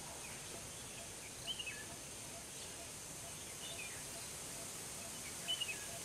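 Forest ambience: a steady high insect drone, with a bird giving short chirping calls about four times, the clearest about a second and a half in and near the end.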